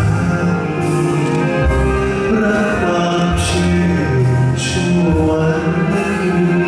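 A man singing live into a handheld microphone over backing music, with long held notes over a steady bass line and two bright splashy hits around the middle.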